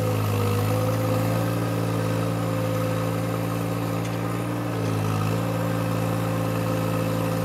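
John Deere sub-compact tractor's three-cylinder diesel engine running steadily under load as it drives a front loader-mounted land leveler through loose dirt, with a slight change in engine note about five seconds in.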